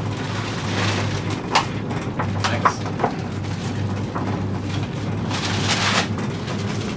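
Inside a moving cable car gondola: a steady low hum with a rushing noise, and several light clicks and knocks scattered through it. The rushing swells briefly near the end.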